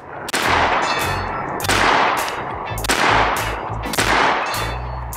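Daniel Defense DDM4 V7P AR-15 pistol in 300 Blackout firing four shots, about a second apart. Each shot is a sharp crack with a long echoing tail.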